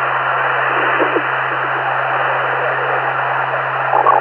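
Police radio scanner static: a steady hiss with a low hum underneath, the sound of a channel held open by a keyed microphone.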